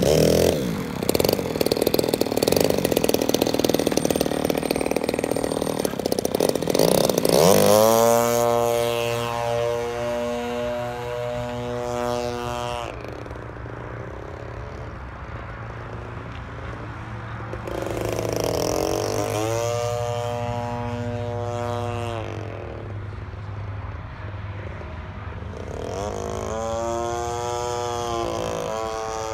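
Gas engine of a radio-controlled Ultra Hots model airplane: loud and rough up close for the first seven seconds or so, then a buzzing drone in flight that grows louder and bends in pitch as the plane passes overhead, three times.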